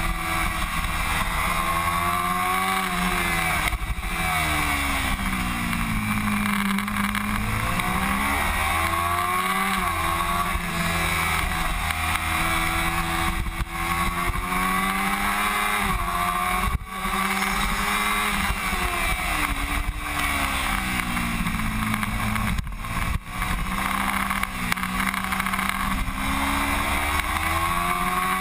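Kawasaki Ninja 250R's parallel-twin engine heard onboard at full track pace, its pitch climbing as it accelerates and dropping off under braking several times over, with a few brief cuts where gears are shifted. Wind rushes over the bike throughout.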